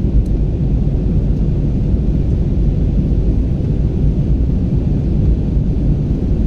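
Steady low rumble of a passenger aeroplane in flight, heard inside the cabin: engine and airflow noise, unchanging throughout.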